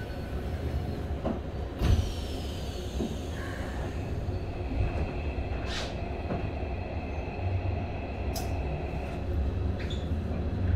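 Interior of a Keikyu 1000-series electric train car standing still with its doors closed: a steady low hum from the car's equipment. There is a sharp thump about two seconds in and a few faint clicks later.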